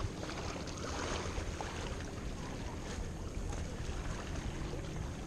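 Wind buffeting the microphone over small waves lapping against a rocky lakeshore: a steady, even rush with a low rumble.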